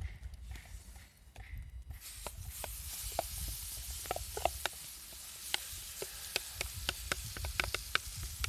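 Food sizzling on a hot, thick iron griddle plate: a steady hiss that starts abruptly about two seconds in, with many sharp crackles and pops of spattering fat through it.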